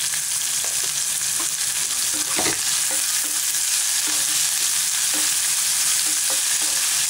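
Chopped onions, garlic, green chillies and curry leaves sizzling in hot oil in a nonstick pan. A wooden spatula stirs them, with short scrapes and taps against the pan; the loudest comes about two and a half seconds in.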